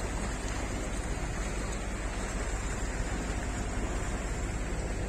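Steady wind noise on the microphone mixed with the wash of sea water, aboard a sailing yacht under way.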